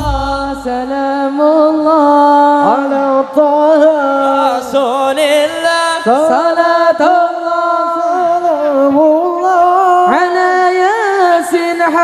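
Unaccompanied male singing of an Islamic sholawat, slow held notes ornamented with glides between pitches, amplified through a stage PA. A low drum stroke dies away at the very start.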